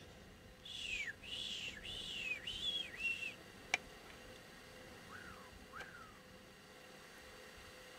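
Siberian cranes calling in flight: a run of four high, whistle-like calls, each dropping in pitch at its end, then two fainter calls a couple of seconds later. A single sharp click sounds between them.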